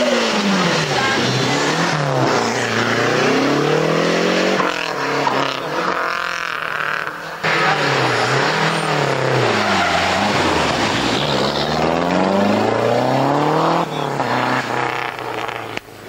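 Rally cars running hard through a bend one after another, each engine revving up and down as it brakes, changes gear and accelerates away. The sound changes abruptly to the next car about five, seven and fourteen seconds in.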